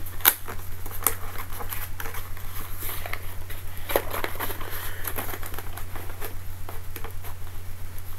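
Hands opening a mailed package: crinkling and tearing of the packaging, with scattered small clicks, over a steady low hum.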